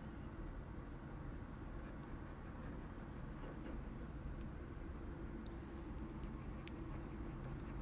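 Coloured pencil shading lightly on kraft paper: faint, soft scratching of the pencil lead, over a low steady hum.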